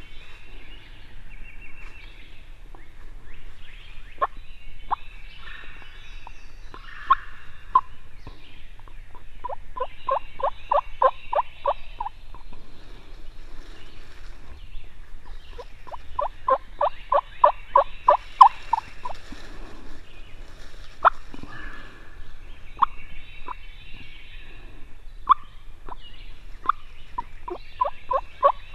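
Turkey yelping: runs of evenly spaced yelps, about four a second, come about ten seconds in and again about sixteen seconds in, with single notes scattered between and another run starting near the end. Other birds sing faintly behind.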